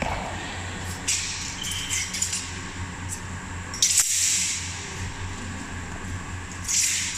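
Movement noise from a southern broadsword (nandao) routine: short hissing swishes in three bursts, about one, four and seven seconds in, with a sharp knock near four seconds in, over a steady low hum.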